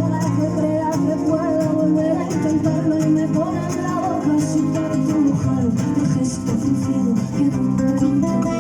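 Music: an instrumental stretch of a song, led by acoustic guitar.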